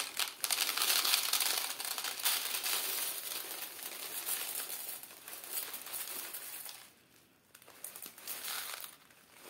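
A clear plastic bag crinkling as corn flakes are shaken out of it, with the light rattle of the flakes dropping into a plastic tub on a kitchen scale. It goes quiet about seven seconds in, then there is a little more rustling before it stops again.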